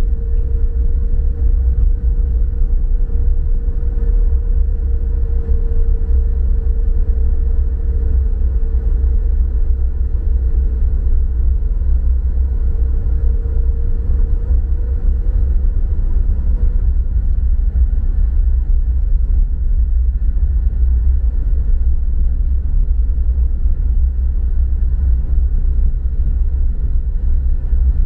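A vehicle driving along a road: a steady low rumble of engine and road noise, with a faint steady hum that fades out a little past halfway.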